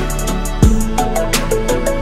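Background music with a steady beat: a deep bass drum, quick hi-hat ticks and short melodic notes over a sustained bass.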